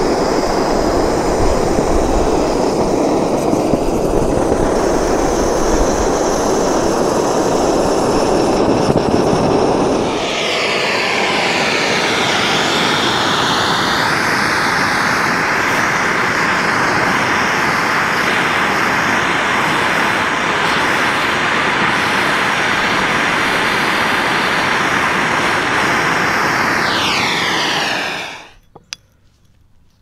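MAP-gas torch flames burning with a steady roaring hiss while heating a gold bead in a graphite mould to melt it into a bar. The first stretch is several torches firing into a small ceramic-fibre furnace. About a third of the way in the sound turns brighter and thinner: a single handheld torch plays directly on the mould. Near the end the torch is shut off abruptly, followed by a couple of light metallic clicks.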